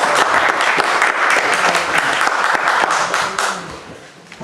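Audience applauding: a roomful of people clapping, which dies away in the last second or so.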